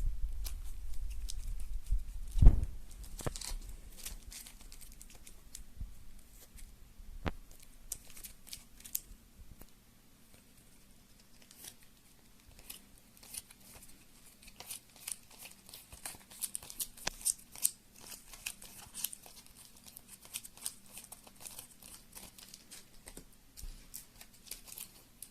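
Plastic wrap on decks of game cards crinkling and tearing, in scattered sharp crackles, with one knock about two and a half seconds in.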